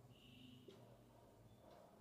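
Near silence, with a faint short squeak and light taps of a marker writing on a whiteboard.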